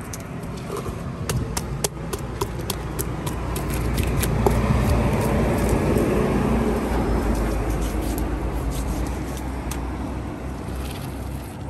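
A motor vehicle passing by: a low engine rumble that swells to its loudest about halfway through and then fades. Scattered sharp clicks run throughout.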